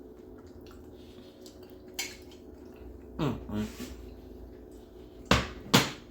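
Kitchen handling sounds of dishware and utensils: a click about two seconds in and two sharp knocks near the end, over a steady low hum. About three seconds in there is a short sound that falls in pitch.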